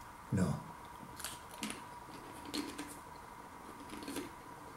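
Crunching of lentil crisps being chewed in the mouth: a few short, faint crackles at irregular intervals.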